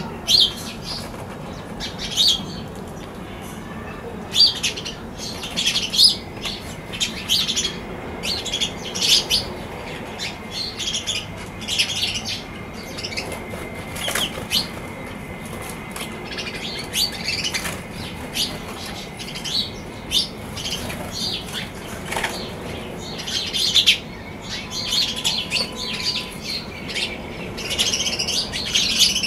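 House sparrows chirping in short, irregular bursts, with occasional wing flutters as birds fly in and out.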